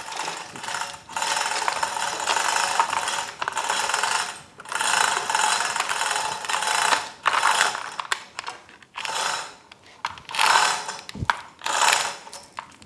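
Manual chain hoist clicking and rattling as its hand chain is pulled, in repeated spells with short pauses, lifting an outboard powerhead off its upper casing.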